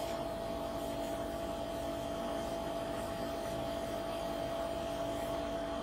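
Steady electrical hum of two constant tones over a faint even hiss.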